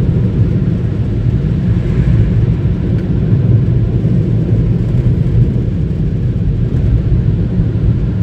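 Steady low rumble inside a car rolling slowly out of an automatic car wash bay.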